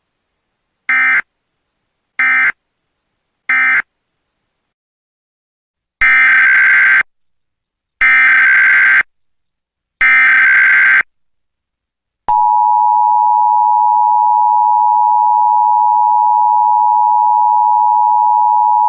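Emergency Alert System tones. First come three short SAME data bursts (end-of-message), then three longer, one-second SAME header data bursts with a harsh digital warble, then the steady two-tone EAS attention signal held for about eight seconds.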